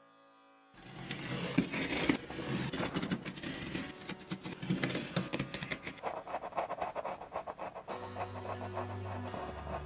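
Pencil scratching and rubbing across drawing paper in quick, uneven strokes as a portrait outline is sketched. Near the end, soft music with steady low notes comes in underneath.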